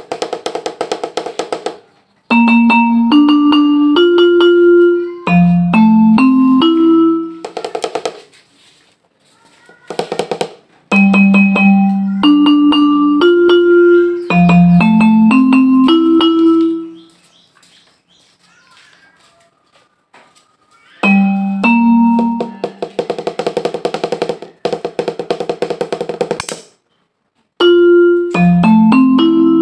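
Roland SPD-20 electronic percussion pad struck with sticks, sounding through its output. Short runs of pitched, mallet-like notes climb in steps and repeat several times, between fast rolls of drum hits.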